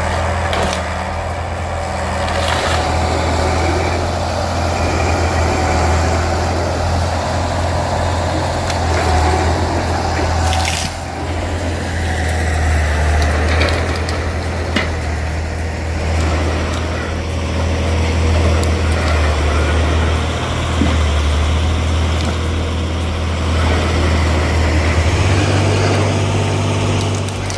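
Heavy machine's engine running steadily under load, with a few short knocks; its low note steps up near the end.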